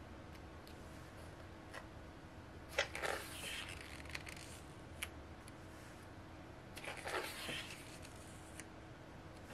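Glossy pages of a photo book being turned by hand, twice, each with a sharp snap and a short papery swish, along with a few faint handling clicks.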